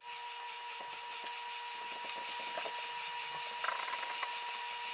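Faint, scattered small clicks and light metal taps as the quill lock parts are handled and fitted to the milling machine head, over a faint steady whine.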